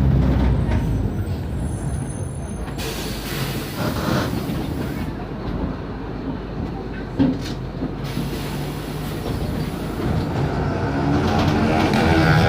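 Mercedes-Benz OF 1519 bus with Marcopolo Torino body on the move: the diesel engine and road rumble ease off for a while, a short knock comes about seven seconds in, and the engine pulls harder again near the end as the bus accelerates.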